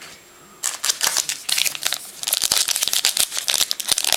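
Crinkling and rustling of thin plastic or foil trading-card packaging being handled, starting about half a second in and growing louder and denser about halfway through.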